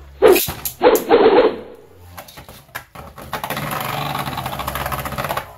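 Hasbro Beyblade Burst tops launched into a plastic stadium: a few loud sharp sounds in the first second and a half as Revive Phoenix is launched. From about three seconds in, a steady whirring, rattling clatter as it and Archer Hercules spin and grind together in the stadium.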